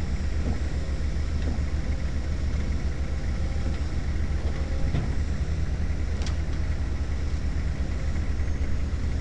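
Heavy diesel engines running steadily, a low, even rumble from the idling truck and the Hitachi EX150 LC excavator as it lowers and reaches out its boom. A couple of faint clicks come through about five and six seconds in.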